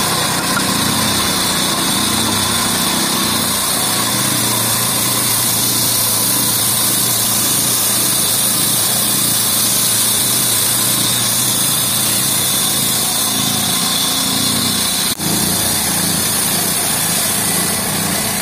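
Sawmill band saw running and cutting lengthwise through a log: a steady, loud, high-pitched machine noise, with a short break about fifteen seconds in.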